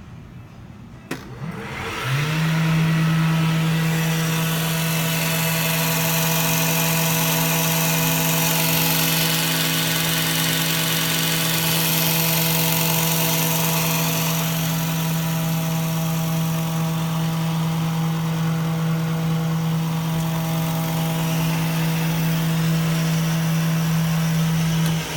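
Boyar Schultz #2 profile grinder's electric motor switched on with a click, spinning up within a second to a steady hum with a high hiss, and running evenly. Near the end it is switched off and its pitch starts to fall as it winds down.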